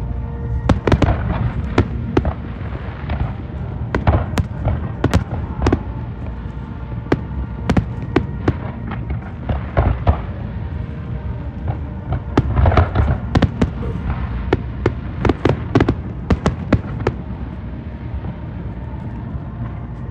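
Fireworks display: aerial shells bursting in a rapid run of sharp bangs that come in clusters and thin out over the last few seconds, over a steady low rumble.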